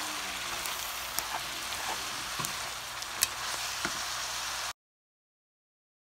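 Noodles with pork and cabbage sizzling in a hot pan as they are stir-fried with a spatula, with a few sharp clicks of the spatula against the pan. The sound cuts off to silence about three-quarters of the way through.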